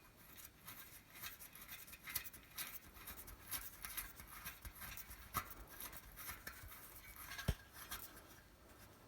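Faint small clicks, taps and scratches of a spoke nipple being fitted by hand onto a new spoke in a box-section bicycle rim, with one sharper click late on.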